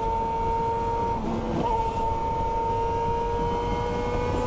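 Yamaha XJ6 inline-four motorcycle engine running steadily at highway speed, heard from the rider's camera with wind and road noise. Its pitch holds nearly level and creeps slightly upward, with a brief break about a second and a half in.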